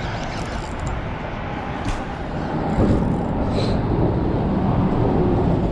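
Steady rumble of road traffic on the bridge overhead, with a few light clicks near the start and about two seconds in.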